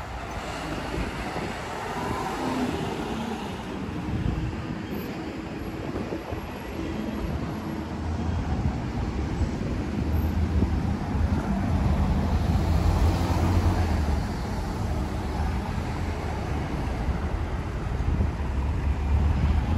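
City street traffic: a steady wash of passing vehicles, with a low engine hum that grows louder from about halfway through.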